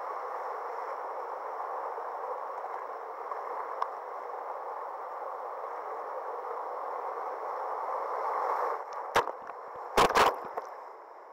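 Whitewater rushing steadily as a kayak runs a rapid, heard close to the water from the boat. Near the end come a few sharp splashes and knocks as waves break over the camera.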